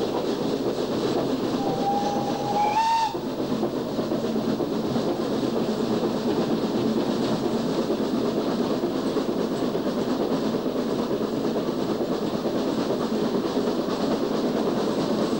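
Footplate of BR Standard Class 9F 2-10-0 No. 92203 on the move, a steady rattling running noise throughout. The steam whistle sounds once, for about a second and a half, beginning about a second and a half in, its pitch lifting slightly just before it stops.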